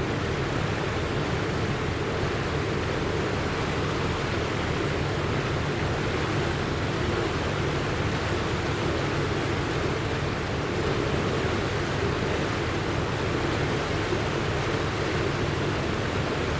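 Steady, deep rushing of floodwater, a continuous even noise with no breaks or single events.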